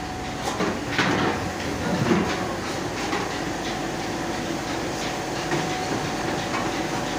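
Aluminium horn loudspeakers clanking and knocking as they are handled and stacked, with a few sharp metal knocks, the loudest about a second in, over a steady background din.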